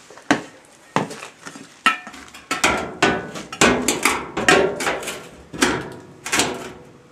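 Metal clanking and knocking, about a dozen irregular strikes with short ringing tails, as a metal bar is worked against the door of a homemade stove to wedge it shut.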